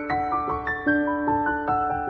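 Background music: a piano playing a gentle run of single notes, several a second, each left to ring.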